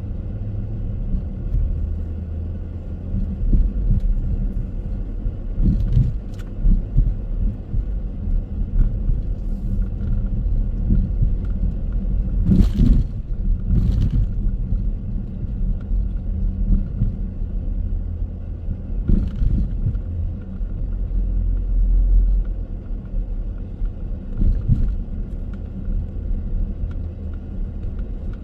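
A car driving, with a steady low rumble of road and engine noise. A few short knocks break in, two of them close together about halfway through, as from bumps in the road.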